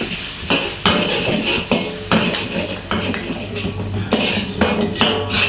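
Stainless steel wok spatula scraping and knocking against a black wok as diced onion is stir-fried in oil, about two strokes a second, over a steady sizzle.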